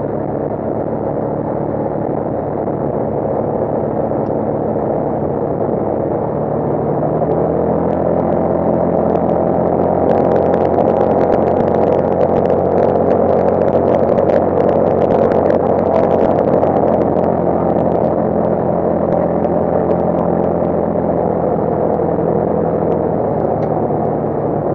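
Side-by-side utility vehicle's engine running steadily under way, heard from inside the open cab. The drone grows a little louder after several seconds, and a spell of rapid clicking and rattling comes through the middle.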